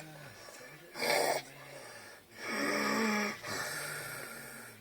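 A drunk woman snoring. There is a short noisy snort about a second in, then a longer, louder rasping snore with a pitched rattle from about two and a half to three and a half seconds, trailing off after it.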